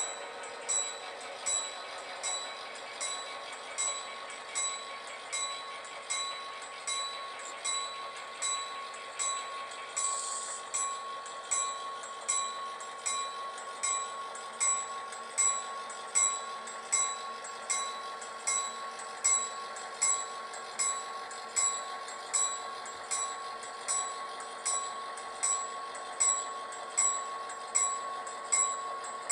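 Model EMD SD40-3 locomotives running slowly on a model railroad: a steady tone with a sharp, regular click or ring about one and a half times a second.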